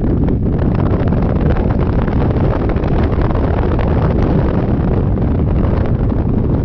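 Wind rushing over the microphone on a moving Yamaha Majesty 400 scooter: a loud, steady, low rumble with no letup.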